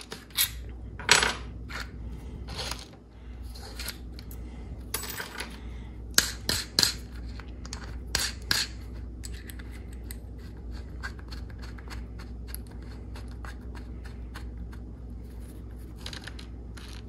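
Metabo HPT cordless drill's keyless chuck being turned by hand while a Phillips No. 2 screwdriver bit is fitted, giving scattered small clicks and metallic clinks over the first several seconds. After that only a low steady hum remains.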